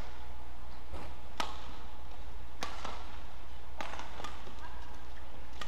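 Badminton rackets striking the shuttlecock back and forth in a rally: four sharp hits a little over a second apart, over a steady low hum.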